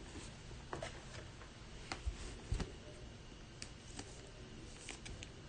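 Faint, scattered clicks and light taps of trading cards and their packaging being handled on a table, with one soft low thump about two and a half seconds in.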